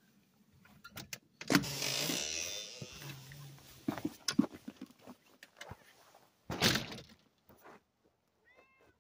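A storm door opened with a long scrape about a second and a half in, then scattered crunching steps and a second loud scrape just before seven seconds. Near the end a black-and-white cat gives one short meow.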